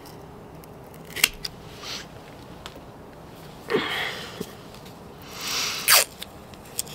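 A cutting tool snipping through the young rootstock's stem just above the graft: a couple of light clicks about a second in, then two short rustling swells, the second ending in a sharp snap near the end.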